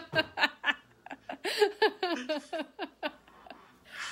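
A woman laughing in quick, rhythmic ha-ha pulses, in two bouts: the first stops just before a second in, the second starts about half a second later and dies away around three seconds in.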